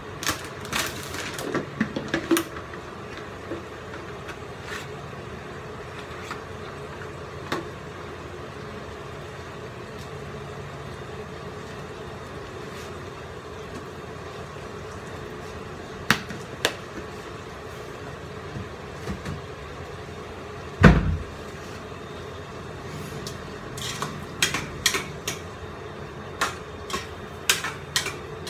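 Steady kitchen background hum with scattered clicks and knocks, and one loud dull thump about two-thirds of the way through. Near the end comes a quick run of clinks and knocks as a utensil works in a cooking pot on the stove.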